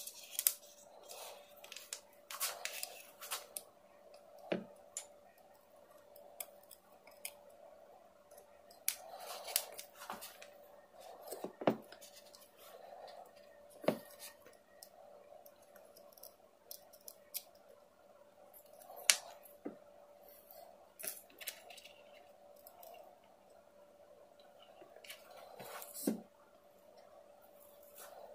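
Irregular small clicks, snips and handling noises of hand work at a workbench, over a faint steady hum.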